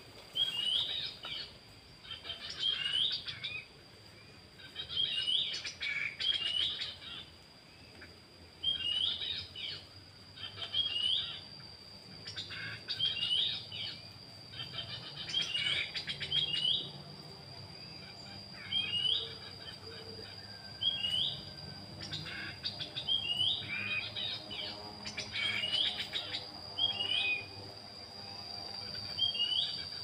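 Black-capped babbler whistling: short, hooked whistled notes repeated every second or two, with a few longer gaps. A steady high-pitched whine runs underneath.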